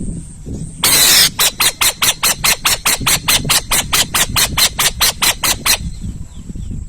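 An owl calling: a harsh, hissing screech of about half a second, then a rapid series of about eighteen short harsh notes, roughly four a second, that stops abruptly.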